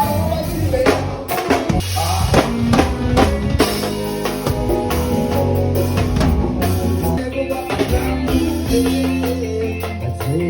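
Live band playing an instrumental passage during a sound check: a drum kit with bass drum and snare hits over a bass line and other pitched instruments.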